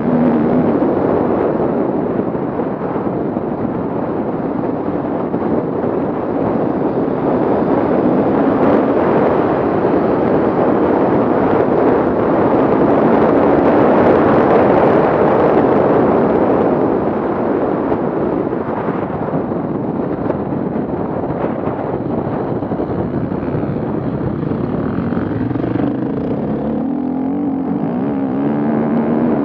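Off-road vehicle engines running hard under load, building to their loudest about halfway through. A wavering engine note rises and falls near the start and again near the end.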